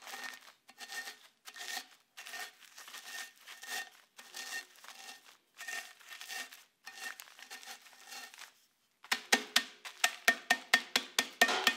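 Wooden rolling pin crushing biscuits in a plastic zip-top bag: crinkling plastic and crunching crumbs in even strokes a little under a second apart. About nine seconds in this turns into rapid, louder knocks as the pin's end pounds the crumbs through the bag.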